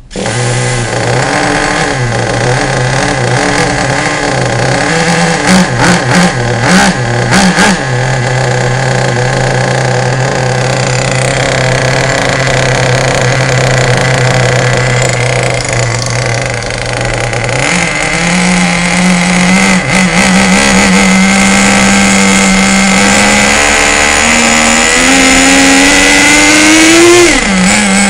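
Traxxas Nitro 4-Tec's small nitro engine running on its first start. It idles steadily with a few quick throttle blips about five to seven seconds in. From about two-thirds of the way it runs at a higher pitch, climbs further near the end, then drops back.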